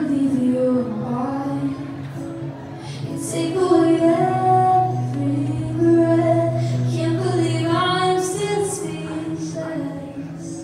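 A woman singing a slow melody live into a microphone, holding long notes, over acoustic guitar and sustained backing tones.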